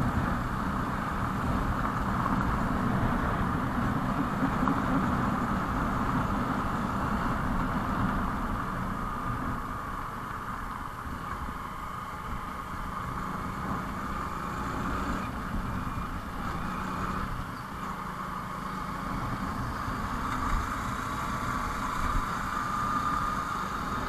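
Hero Super Splendor motorcycle's small single-cylinder engine running steadily while riding, with the rumble of the road and wind noise on the mounted microphone.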